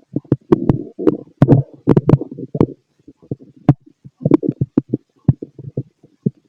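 A man's stomach growling, picked up close through a stethoscope: a quick run of short gurgles and pops, some with sharp clicks. It is busiest in the first half, then the gurgles come more sparsely.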